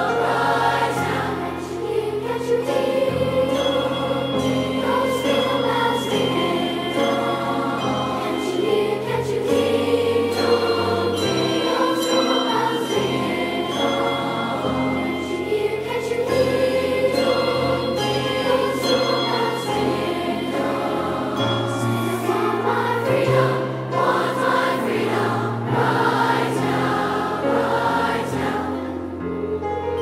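A large whole-school choir singing, many voices together in a gospel-style piece.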